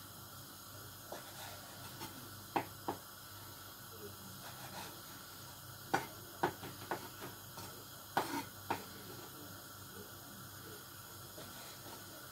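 Kitchen knife cutting through lamb-chop fat and knocking on a wooden chopping board: short, sharp irregular knocks in small clusters, over a steady faint hiss.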